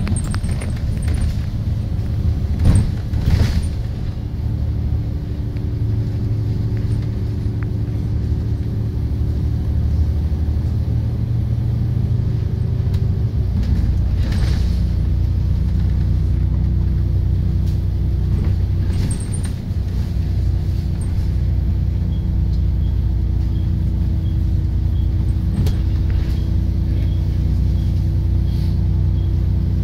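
Double-decker bus engine running under way, heard from inside the bus as a steady low drone with a constant hum; the engine note drops a little and the rumble deepens about 13 seconds in. A few short rattles about three seconds in.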